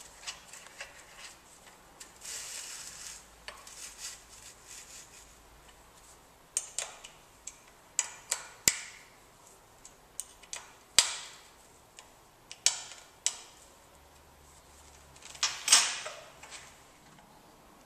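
Metal hand tools being handled, a torque wrench and its bits: scattered sharp metallic clicks and clinks, with several loud ones in the second half and a short rasping stretch about two seconds in.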